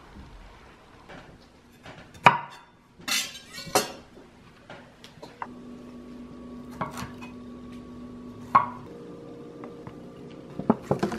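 Meal-prep sounds in a kitchen: a few sharp knocks and clatters of a knife on a wooden chopping board and a glass baking dish, the loudest about two seconds in, with a steady low hum from about halfway.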